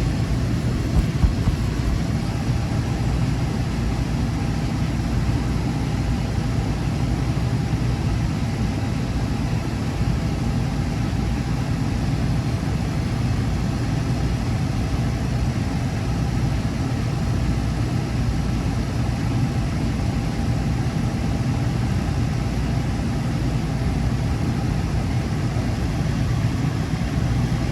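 Small walk-in cooler's condensing unit running steadily, compressor and condenser fan humming with a faint steady whine, while it pumps the system down.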